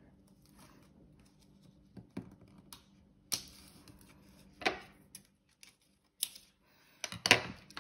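Cardstock being handled on a tabletop: a handful of separate light taps and clicks with brief paper rustles, spread out with short pauses between them.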